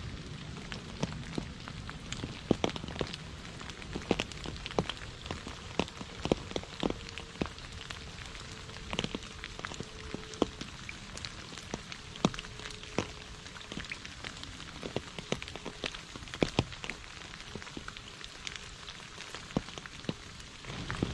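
Steady rain falling close by: an even patter with many separate drops landing irregularly as sharp taps.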